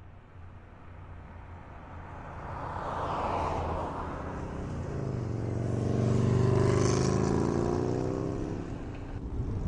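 Traffic passing on a narrow street: a car goes by with a rush of tyre and engine noise, then the engine hum of passing motorbikes and scooters swells to its loudest about six seconds in and fades.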